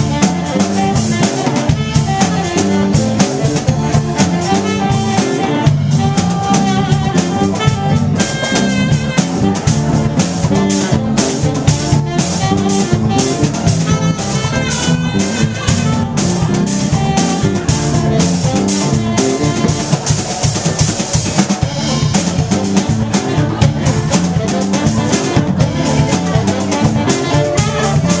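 A live band playing an instrumental passage without vocals: a drum kit keeps a steady beat under electric guitar and saxophone. A lead line with bending notes stands out in the middle stretch.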